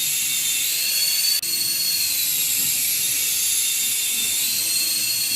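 Small electric motors and rotors of an infrared-sensor toy helicopter whining in flight, the high-pitched whine rising and falling in pitch as the motors speed up and slow. A very brief break comes about a second and a half in.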